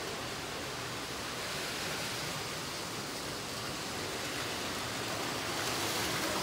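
Steady, even wash of noise from many battery-powered Plarail toy trains running at once on plastic track.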